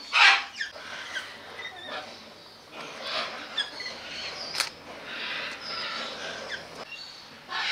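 Parrots squawking and chattering: a loud, harsh screech right at the start, then a run of smaller calls, with a sharp click about four and a half seconds in.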